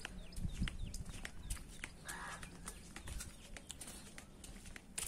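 Small birds chirping: many short, quick calls that drop in pitch, with a harsher rasping call about two seconds in, over a few low thumps of footsteps on stone paving near the start.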